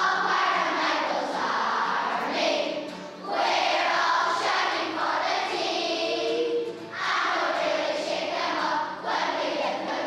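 A group of schoolchildren chanting and singing together in unison, in loud phrases with brief breaks between them.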